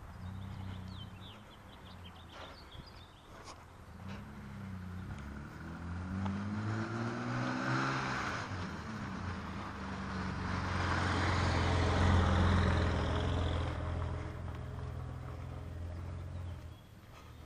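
A car driving close by. Its engine note rises over a few seconds, then the engine and tyre noise grow to their loudest about twelve seconds in and die away near the end.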